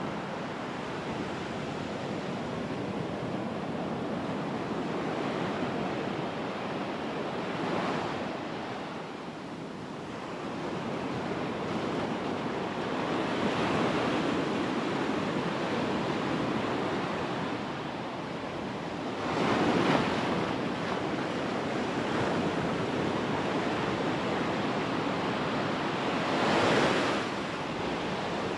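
Ocean surf breaking on a sandy beach: a continuous wash of waves, with four louder breakers swelling and fading over the stretch, the last two the loudest.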